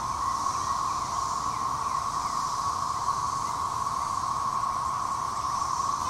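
Chorus of Brood XIX periodical cicadas (Magicicada): a continuous, steady, high-pitched drone from the massed singing males during their 13-year emergence.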